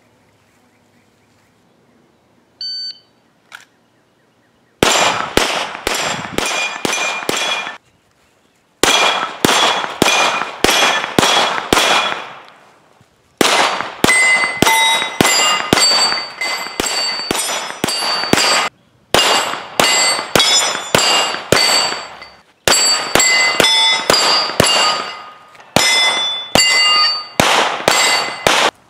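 A shot timer beeps briefly about three seconds in, then a Glock 17 fires 147-grain 9mm rounds in several rapid strings, each shot followed by the clang and ring of steel targets being hit.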